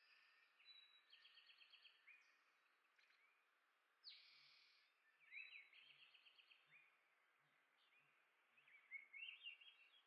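Faint songbird chirps and twitters, with short rapid runs of notes about one and six seconds in, a brief harsh burst about four seconds in, and a cluster of chirps near the end.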